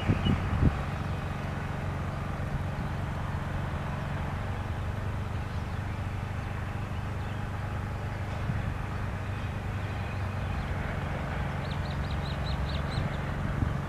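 EMD two-stroke diesel-electric locomotive engines running with a steady low drone, the note shifting slightly about four seconds in.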